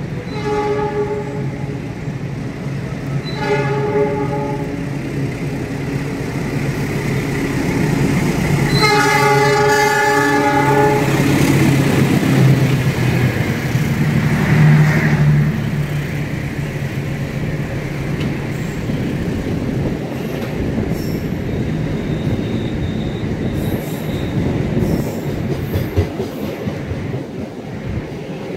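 A passenger train passing through on the near track. A train horn sounds three times, two short blasts and then a longer one of about two seconds. Then comes the loud rumble and rattle of the locomotive and carriages going by, loudest about halfway through and easing off but still running near the end.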